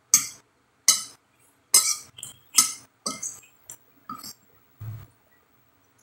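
Metal fork clinking and scraping against a glass plate while rice is scooped up, about eight sharp ringing clinks over five seconds.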